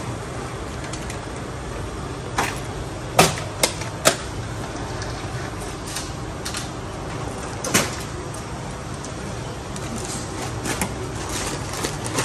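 Steady store hum at a shop checkout counter, with a handful of sharp clicks and knocks from handling at the till: three or four close together a few seconds in, and one more near the middle.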